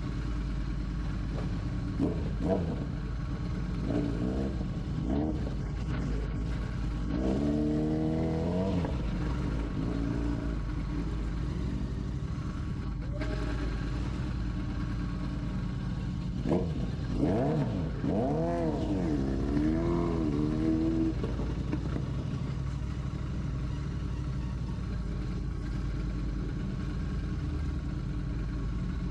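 Royal Enfield Classic 650's parallel-twin engine running under way in a steady low rumble, its pitch rising and falling twice as the throttle is worked, with a few short knocks in the first few seconds.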